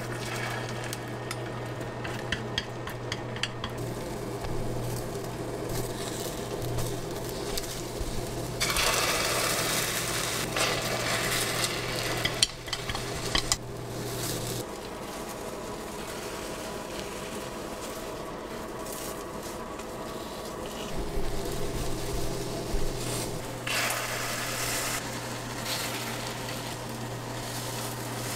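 Food frying in a pan, sizzling, with a utensil stirring and clinking against it; the sizzle swells louder about nine seconds in and again near the end. A steady low hum runs underneath, drops out about halfway through and comes back later.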